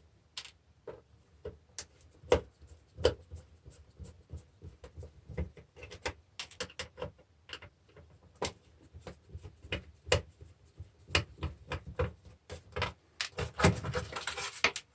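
Scattered clicks and knocks of screws and hard plastic casing parts being handled as a tyre inflator is unscrewed and taken apart by hand, with a denser rattle near the end as the plastic piece comes free.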